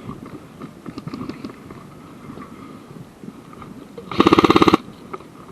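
An airsoft electric gun (AEG) firing one short full-auto burst of about a dozen rapid shots, about four seconds in.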